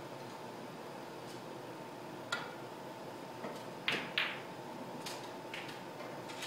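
Snooker balls clicking: a sharp click about two seconds in, then a loud pair of clacks about four seconds in and a few lighter knocks as the cue ball strikes the yellow and the balls run on. A steady faint hiss with a thin high hum lies underneath.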